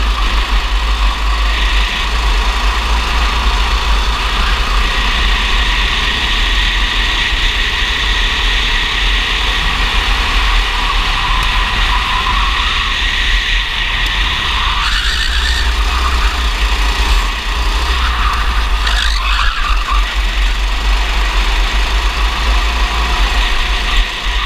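Onboard sound of a racing kart at speed: its engine running steadily under heavy wind rumble on the kart-mounted camera's microphone, with a few short scuffs around the middle and near the end.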